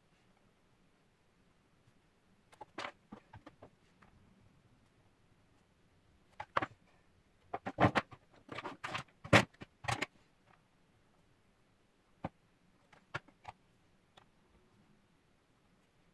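Plastic makeup tubes and cases clicking and clattering as they are picked up and set down on a wooden desk and a glass-top kitchen scale: a few scattered taps, then a quick run of knocks about halfway through.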